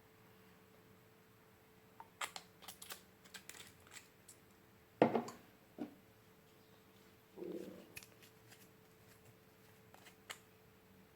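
Scattered small clicks and taps of objects being handled at a slime-making table. The loudest comes about five seconds in, and a shorter, duller sound lasting about half a second comes about seven and a half seconds in.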